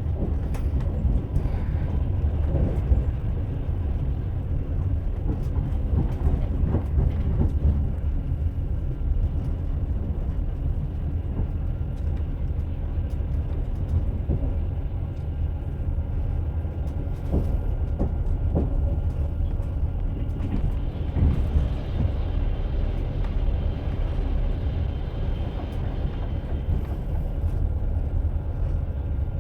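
Train running along the track: a steady low rumble of the wheels on the rails, with a few scattered knocks from the wheels over rail joints.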